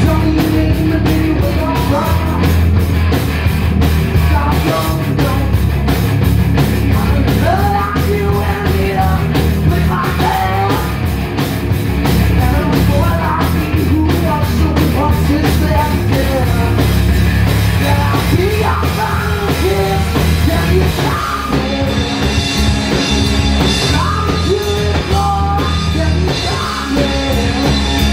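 Punk rock band playing live, with electric guitar, bass guitar and a drum kit, and shouted singing over it. The steady cymbal beat thins out about two-thirds of the way through.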